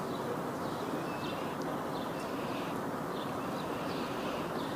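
Small birds chirping, short calls repeating about every half second, over a steady rushing outdoor background noise.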